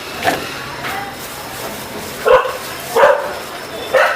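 Stray dogs barking: about four short, sharp barks spaced a second or so apart.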